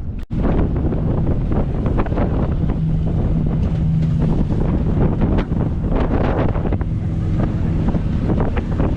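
Wind buffeting the microphone on a moving motorboat, with a steady low engine hum underneath; the sound drops out for an instant just after the start.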